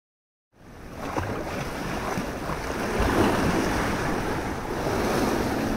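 Sea surf and wind, a steady noise that fades in from silence about half a second in.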